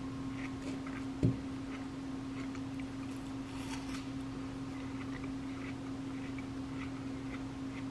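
Quiet indoor room tone with a steady electrical hum, faint irregular ticking, and one dull knock about a second in.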